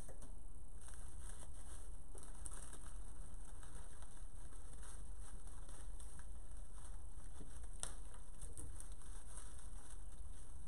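Faint rustling and light scattered clicks of artificial foliage and flower stems being handled and pushed into a headstone saddle arrangement, over a steady low background rumble.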